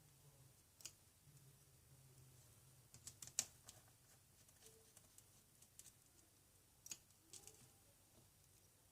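Faint, scattered light clicks and taps of small repair tools and tiny parts being handled on a disassembled iPhone, with a short cluster of clicks about three seconds in, over a faint low hum.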